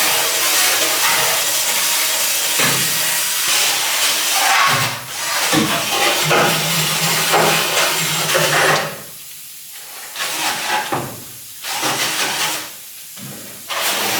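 Power tool working bare sheet metal on a car body, stripping old seam sealer and rust down to metal: a loud, steady hissing grind. Near the end it cuts out briefly three times as the tool is lifted or stopped.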